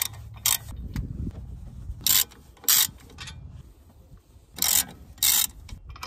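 Ratchet wrench with a 19 mm socket working the hub assembly's mounting bolts loose. Short bursts of ratchet clicking come on the back-strokes, in three pairs about two seconds apart.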